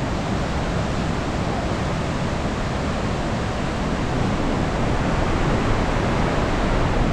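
Loud, steady rush of water from the Leutaschklamm waterfall and the Leutascher Ache mountain river in the narrow gorge. It swells slightly about four seconds in.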